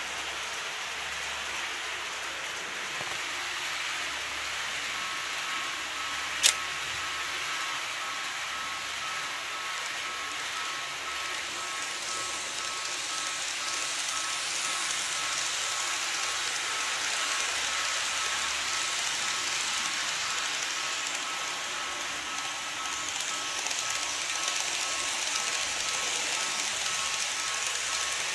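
Model railway level crossing's warning bell ringing a rapid, repeating two-tone ding from about five seconds in, over the steady hiss of N-gauge trains running on the track. A single sharp click comes just after the bell starts.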